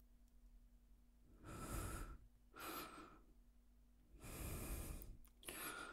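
A man breathing softly: four faint breaths, the first two about a second and a half in and the other two near the end.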